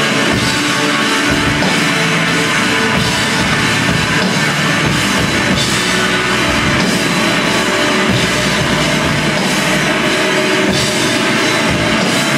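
Instrumental post-rock band playing live, with electric guitars, bass guitar and drum kit, loud and steady with no break.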